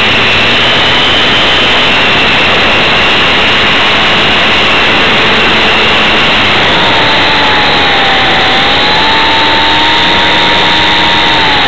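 Radio-controlled model airplane's motor and propeller heard from a camera on board, a loud steady whine under heavy rushing wind noise. A second, lower whine comes in about seven seconds in and wavers slightly in pitch.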